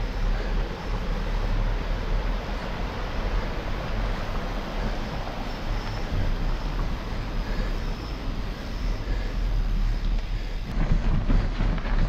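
Mountain bike rolling across a wire suspension bridge, with a steady rushing sound of wind on the microphone and the stream below. A little before the end the bike comes off onto a dirt track, and irregular bumps and rattles start.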